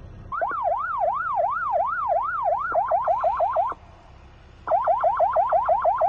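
Electronic car-alarm-style siren cycling through its tones: slow up-and-down whoops about three a second, then quicker whoops, a break of about a second, then quick whoops again.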